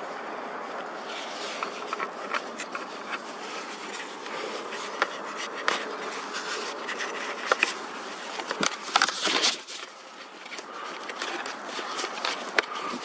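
Camera handling noise: rubbing and scraping against the microphone with scattered clicks over a steady hiss, and a louder cluster of scrapes about nine seconds in.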